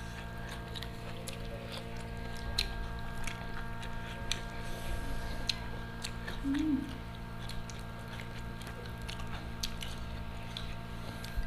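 Close-up mouth sounds of eating by hand: chewing grilled chicken and rice, with many short, irregular wet clicks and smacks, over a steady low hum. A brief low hummed sound comes about six and a half seconds in.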